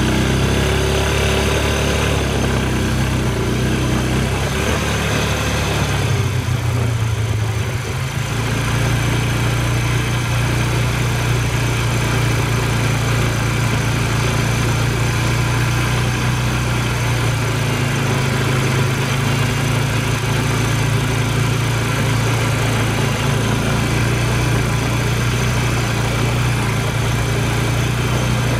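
ATV engine running steadily under way, with a low, even drone; about six seconds in the engine note drops and changes for a couple of seconds before settling back to a steady pull.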